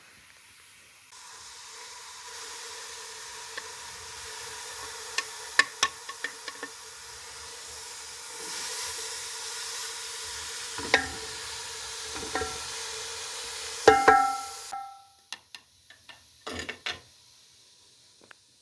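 Food sizzling in a hot pan while a metal utensil clicks and clinks against it several times, the loudest a ringing clank near the end. The sizzling cuts off suddenly, leaving a few quieter knocks and clicks.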